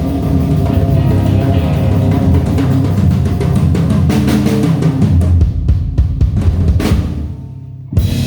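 Rock band with drum kit, bass and guitar playing, breaking into a few separate hits about five seconds in, then a final chord fading out and cutting off near the end.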